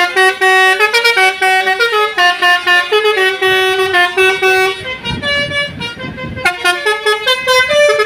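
Telolet basuri melodic bus horns playing a tune of stepped notes, several pitches sounding at once over a held low note. The tune breaks off about five seconds in, leaving a low engine rumble, then resumes with quicker notes.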